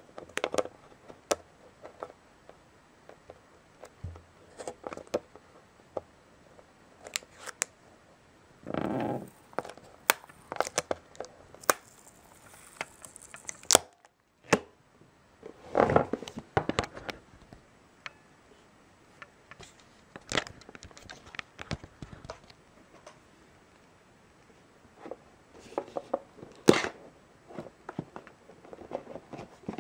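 Hands handling a clear plastic retail display box: irregular clicks and taps of hard plastic with short rustling scrapes, a few of them louder.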